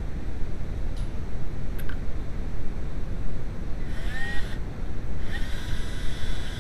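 Cordless drill/driver motor spinning up briefly with a rising whine about four seconds in, then running steadily near the end, over a steady low rumble. Two light clicks come about a second in and again just under a second later.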